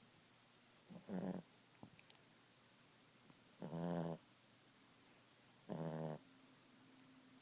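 Boston terrier snoring in its sleep: three snores, each about half a second long, roughly two seconds apart.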